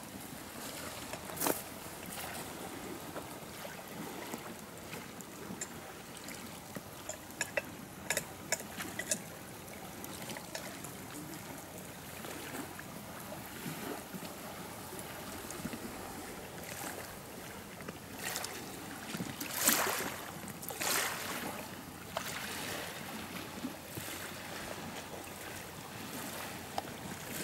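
Steady outdoor ambience of water lapping and wind, broken by scattered sharp knocks and clicks, the loudest a few seconds past the middle.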